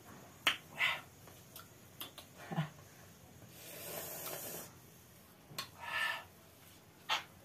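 Mouth sounds of people eating sliced raw lemons: a few short wet smacks and slurps. There is a longer hiss about four seconds in, and a sharp smack near the end.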